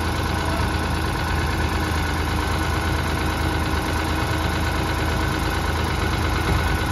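Diesel engines of a Sonalika DI-35 tractor and a JCB 3DX backhoe loader running steadily together, with a deep, even hum.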